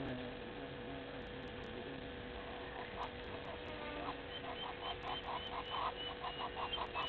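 Bush bird calling a short note repeated about three to four times a second, starting about four seconds in, with faint high chirps above it, over a steady thin hum.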